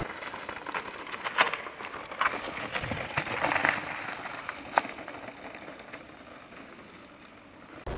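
Mountain bike riding over a rocky trail strewn with dry leaves: tyres crunching over leaves and stones, with a few sharp clicks and rattles, fading off near the end.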